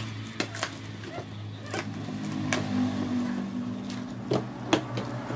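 Cardboard shipping box being handled and worked open by hand: about six sharp clicks and knocks, the loudest a little before the end, over a steady low hum.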